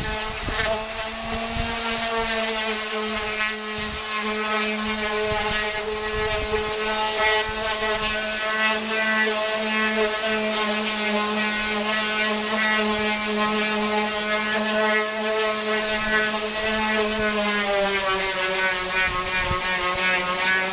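Two electric sanders running together on fiberglass body panels: a steady whine with a separate lower hum under it, the pitch dipping slightly near the end.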